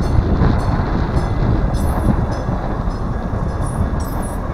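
Denver RTD light-rail train rolling through a street grade crossing: a steady rumble of wheels on rails, with scattered sharp clicks. Wind buffets the microphone underneath.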